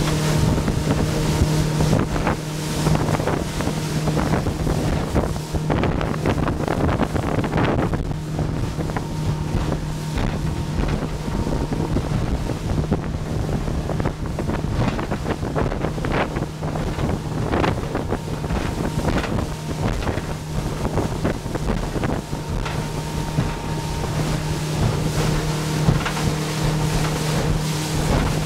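Motorboat engine running steadily at speed, with water rushing and spraying past the hull, irregular slaps as the hull hits the chop, and wind on the microphone.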